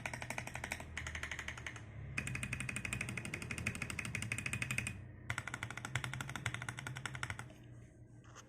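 Fast typing on a mechanical keyboard fitted with Akko clear keycaps: rapid keystroke clacks in several runs, with short breaks about two and five seconds in, trailing off near the end.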